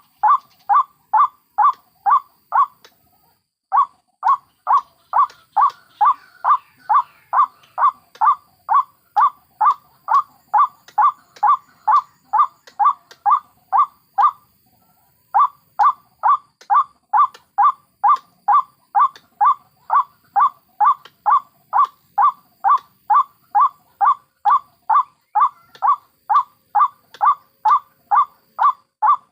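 White-breasted waterhen (ruak-ruak) calling: a long run of identical short, clipped notes, two to three a second, broken off twice by short gaps. It is a lure call for drawing waterhens in.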